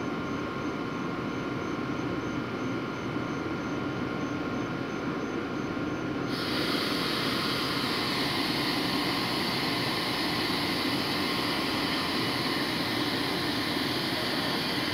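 Amtrak ACS-64 electric locomotive standing at the platform, its onboard equipment running with a steady hum and a thin whine. About six seconds in, a louder hissing rush cuts in suddenly and holds.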